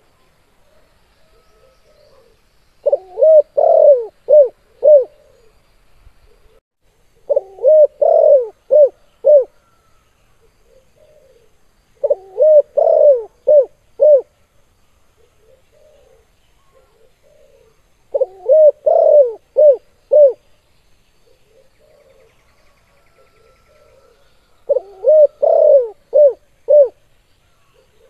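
Spotted dove (tekukur) cooing: five loud phrases of about five coos each, a few seconds apart, with fainter, softer cooing between the phrases.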